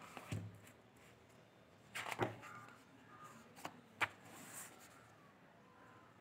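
A thick textbook being handled and opened by hand: a soft rustle and knock of the cover about two seconds in, then a couple of sharp taps and a brief papery swish as a page is turned about four seconds in.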